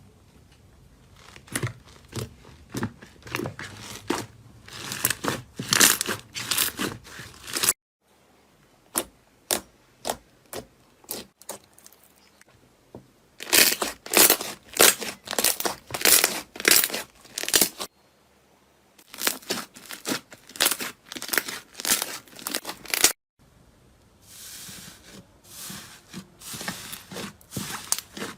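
Crunchy slime being pressed and pulled, giving runs of sharp crackling, crinkling pops several times a second. The sound comes in separate short takes that start and stop abruptly.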